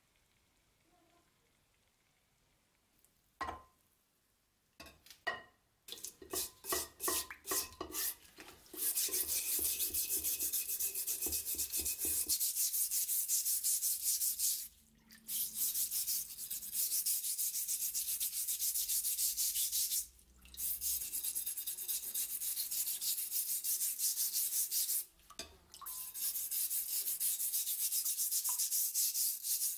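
A rusty steel knife blade scrubbed by hand to strip off loosened black rust. Fast back-and-forth scrubbing runs in long stretches with brief pauses, after a knock and a few scattered strokes in the first seconds.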